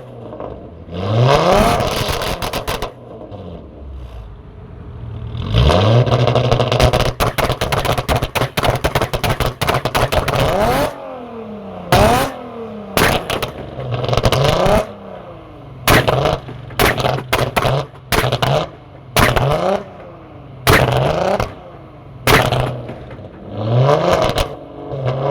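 Supercharged 3.0-litre V6 of a B8 Audi S4 through a straight-piped, valved exhaust, revved over and over. A few long revs rise and fall, then comes a string of quick throttle blips. Each rev comes down with sharp pops and crackles, densest in a long crackling stretch about six to eleven seconds in.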